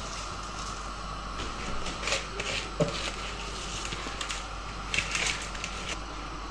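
Rice being tipped and scraped by hand off a plastic sieve into a pot of milk: short rustling patters of falling grains in two clusters, and a light knock of the sieve against the pot rim near the middle, over a steady background hum.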